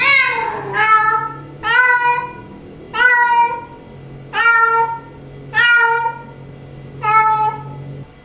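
Female cat in heat calling for a tomcat: seven meows about a second apart, each rising at the start and then levelling or falling slightly in pitch.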